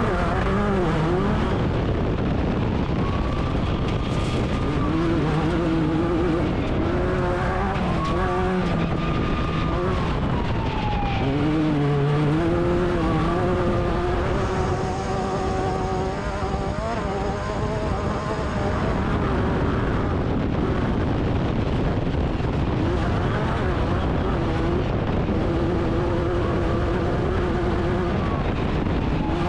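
Class 10 off-road race buggy engine running hard, its pitch rising and falling again and again with throttle and gear changes, over a steady dense noise.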